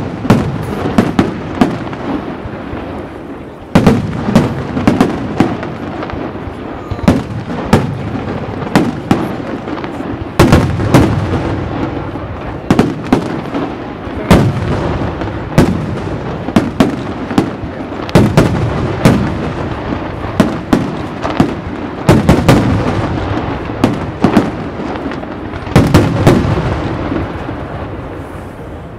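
Aerial firework display: shells bursting in a steady barrage of sharp bangs at irregular intervals over a continuous crackling rumble, with fresh volleys surging in about every four to eight seconds.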